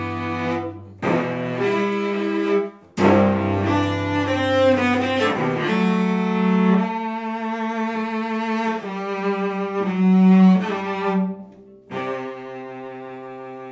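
Solo cello played with the bow: slow, long held notes and chords with short breaks between phrases, the last note starting near the end and quieter.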